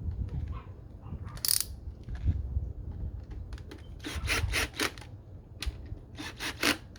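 Hand work on a motorcycle air-intake install: rubbing and handling of the parts, with a quick run of clicks about four seconds in and another near the end, like a ratchet or screwdriver working the intake's screws.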